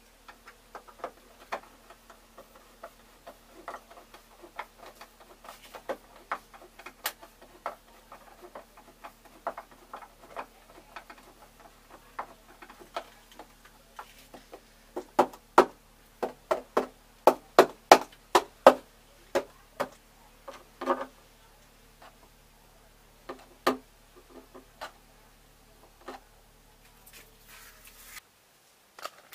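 Sharp clicks and knocks of hand tools and hardware being worked on a wall-mounted ultracapacitor bank. Scattered light taps give way about halfway through to a quick run of louder knocks, about three a second, followed by one heavier knock and a few last taps.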